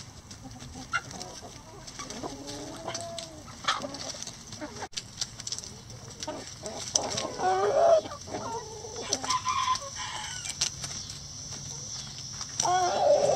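A backyard flock of chickens clucking and calling while they feed, with the loudest calls about seven to eight seconds in and again near the end.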